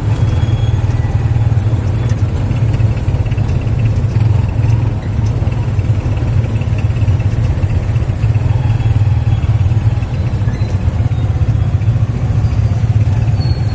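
Tuk-tuk (motorcycle tricycle) running steadily under way: a continuous low engine drone mixed with road and traffic noise.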